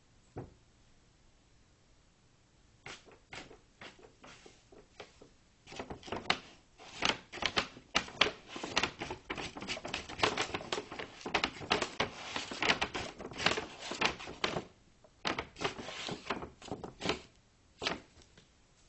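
A bag rustling and crinkling as a cat moves around in it. There are a few scattered crackles at first, then dense crinkling through the middle, then a few more crackles near the end.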